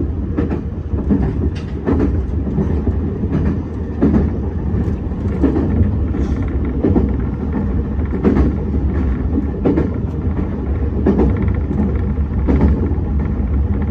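Meitetsu 6800 series electric train running along the track, heard from the driver's cab: a steady low rumble with sharp clicks every second or so as the wheels pass over rail joints.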